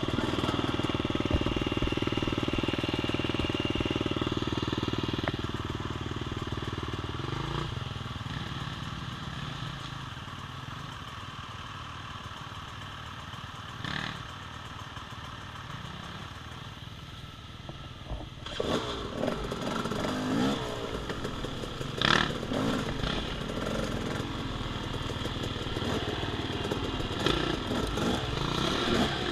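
Off-road dirt bike engine running steadily, then dropping lower and quieter about seven seconds in. From about eighteen seconds on it revs unevenly, with sharp clattering knocks from riding over rough trail.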